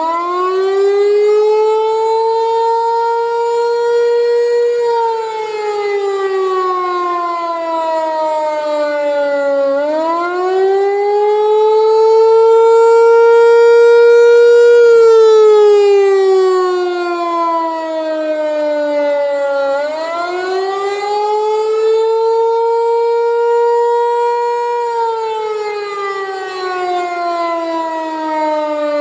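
Federal Signal Equinox rotating chopper siren sounding the attack signal: a loud wail that rises in pitch over about three seconds, holds, then falls slowly, repeating about every ten seconds. It swells loudest in the middle cycle.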